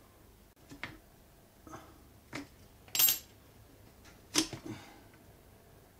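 Metal parts of a pneumatic air cylinder clicking and clinking as it is taken apart by hand: a few light clicks, then a louder ringing metallic clink about three seconds in and another sharp knock about a second and a half later.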